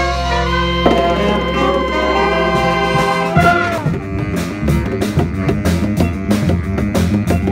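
Jazz band of trumpets, trombones and saxophones playing: the horns hold long chords, then about three seconds in they fall off and the band breaks into a fast rhythmic groove with steady drum and cymbal hits.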